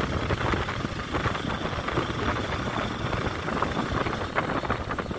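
Steady engine noise of a moving vehicle.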